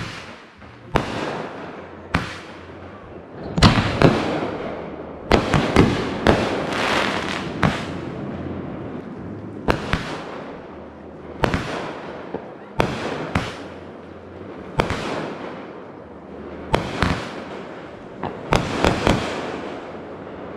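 Aerial fireworks going off in a run of sharp bangs, roughly one every second, some coming in quick clusters, each with a fading tail as the shells launch and burst.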